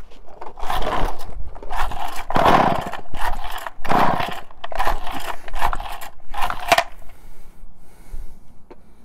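Compressed-air blow gun fired in about eight short hissing blasts over some six seconds, blowing dirt out of the chainsaw's fuel passages.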